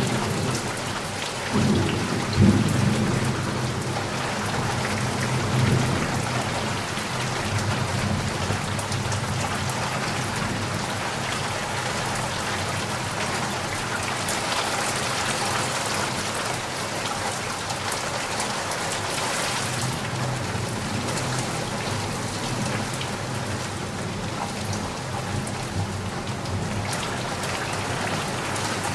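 Steady rain pattering down, with low rumbles of thunder in the first few seconds that fade, leaving the rain alone.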